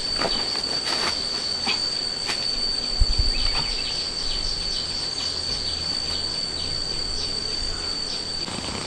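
Insects droning in a steady high-pitched whine, with scattered light clicks and rustles over it and a single low thump about three seconds in.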